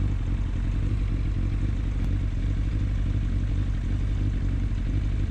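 Yamaha FZS600 Fazer's inline four-cylinder engine idling steadily while the motorcycle stands still.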